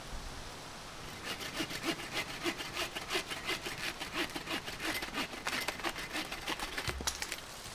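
Hand saw cutting through a piece of wood with quick regular strokes, about three a second, starting a second or so in; a low thump near the end.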